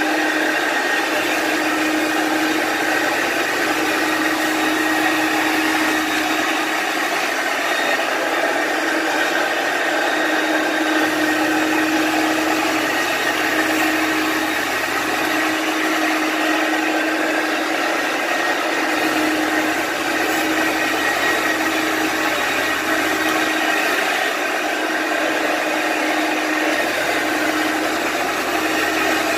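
A carpet-cleaning hot-water extraction machine's vacuum running steadily while its wand works a wool rug: a constant rushing noise with a steady hum.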